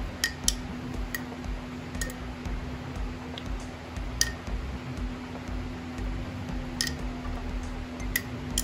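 Thin metal spoon stirring soaked cotton balls in a glass jar, clinking against the glass now and then: a few sharp, irregularly spaced ticks over a steady low hum.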